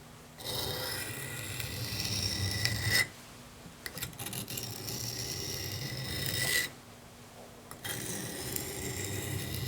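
Steel knife blade stroked along a sharpening stone in one direction: three long scraping passes of two to three seconds each, with short pauses between them.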